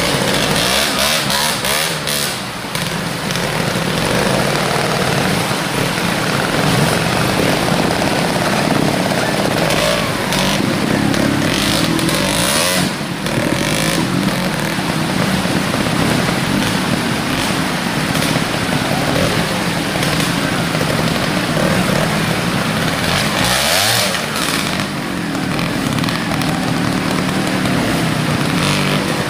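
Trials motorcycle engine running under the rider's throttle as the bike climbs and picks its way over leaf-covered ground, its pitch rising and falling as the throttle is opened and closed.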